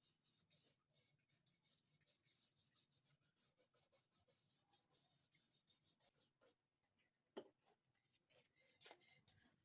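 Near silence with faint, rapid scratching or ticking and one sharper click about seven and a half seconds in.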